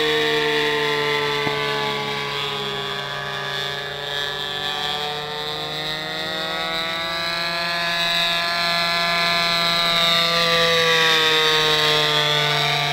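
R/C model airplane's 31cc Ryobi gas engine turning a 16x8 three-blade prop, buzzing steadily in flight. Its pitch and loudness slowly fall and rise as the plane flies away and back, and it is loudest near the end as it passes low.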